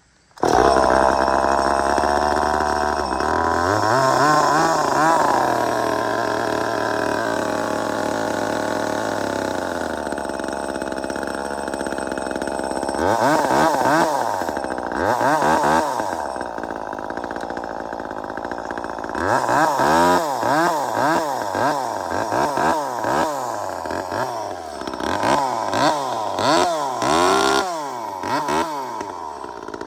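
Small two-stroke top-handle chainsaw engine catching on high idle and running steadily, then revved up and down in quick blips, about one a second. It starts and runs after being repaired for a fuel line pinched inside the tank.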